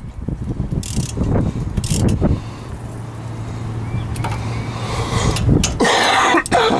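Ratchet and socket clicking, with metal clinking, as the bolts on a 1997 Lincoln Town Car's front brake caliper are tightened. It runs over a steady low hum, with scattered clicks in the first couple of seconds and a louder noise about six seconds in.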